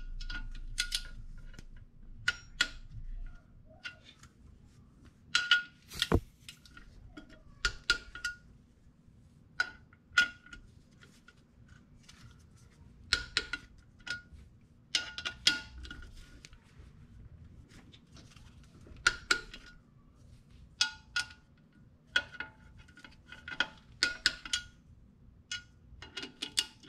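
Ratchet wrench clicking and its socket clinking in short, irregular bursts as the clutch pressure plate bolts are run down onto the flywheel, many clicks followed by a brief metallic ring. A low hum fades out in the first two seconds.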